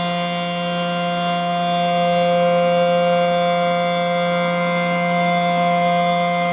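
ACA P-10 electromechanical outdoor warning siren sounding a steady full-alert tone, its pitch held level with a gentle swell in loudness.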